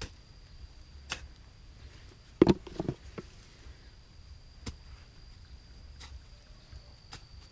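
Scattered knocks and thuds, the loudest a quick cluster of three about two and a half seconds in, over a thin steady high insect buzz.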